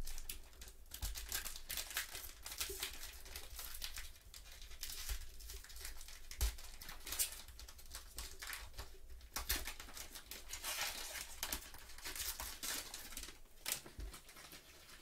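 The foil wrapper of a basketball trading card pack being torn open and crinkled by gloved hands: a dense crackling that comes in waves, with a few low knocks as the pack and cards are handled against the table.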